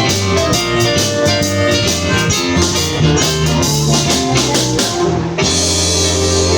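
Blues-rock band with drums and guitar playing the closing bars of a song, ending on a held final chord about five and a half seconds in.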